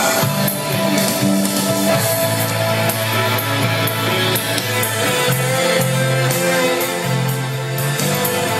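Music with guitar, bass line and drums played back from a TEAC reel-to-reel tape deck.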